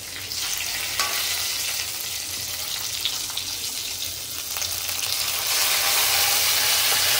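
Garlic and curry leaves sizzling in hot oil in a kadai for a dal tadka, stirred with a metal spoon, with a single sharp tap about a second in. The sizzle swells louder about five seconds in as the cooked dal is poured into the hot tempering.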